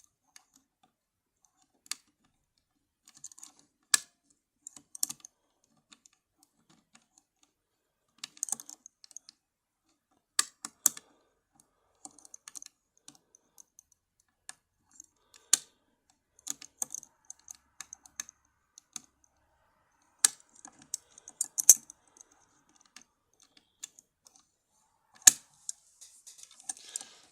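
Lock pick and tension tool working the pins of an ERA Fortress cylinder lock. Irregular sharp metallic clicks, a few much louder than the rest, with faint ticking between them as pins are lifted and set.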